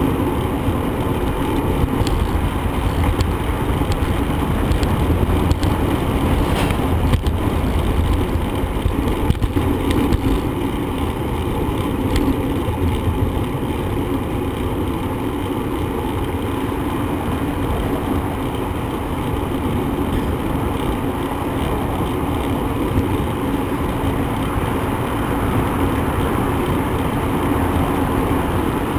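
Steady rushing noise of riding a bicycle: wind on the microphone and tyres on the road, with a few light clicks in the first ten seconds.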